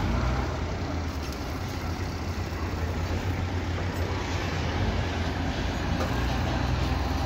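Diesel engine of heavy construction machinery running steadily, a constant low hum under general site noise.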